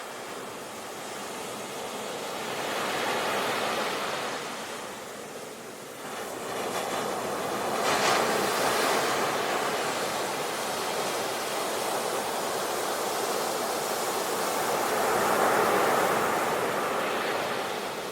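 Sea waves rolling in and breaking on the shore. The surf rises and falls, with one wave breaking suddenly about halfway through and another big swell near the end.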